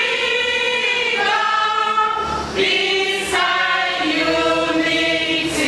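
A large group of voices singing together in long held notes that shift to new pitches every second or so.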